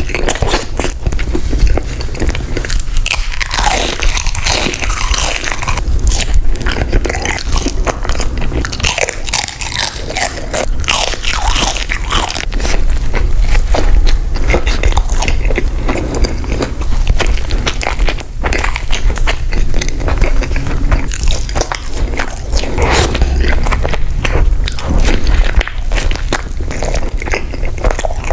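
Close-miked eating: repeated crunchy bites and chewing of crisp food, irregular and continuous, over a low steady hum.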